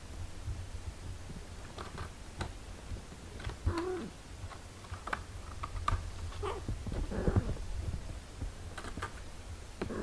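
Mother cat nursing her six-day-old kittens: a low steady purr, small clicks and rustles as the kittens suckle and shift, and a few short soft cat calls, about four seconds in and again about seven seconds in.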